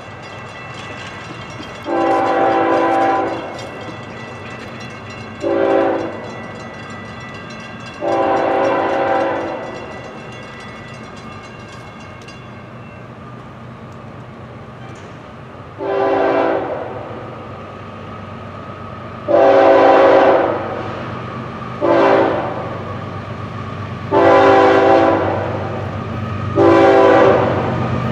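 Approaching Florida East Coast Railway diesel locomotive sounding its air horn in a series of about eight long and short blasts, growing louder as it nears. The later blasts run long, long, short, long, the standard grade-crossing warning. A steady low engine rumble lies underneath.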